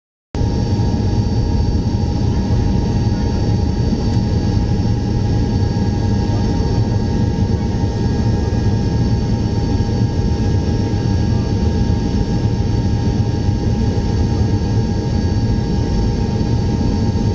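Tupolev Tu-154M's three rear-mounted Soloviev D-30KU-154 turbofans running at taxi power, heard inside the cabin. A steady deep rumble carries several steady high whines.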